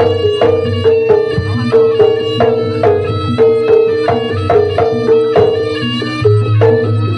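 Javanese jaranan ensemble playing, led by a hand-struck kendang drum: a steady driving rhythm of low drum strokes under a repeating pitched melody that comes around two to three times a second.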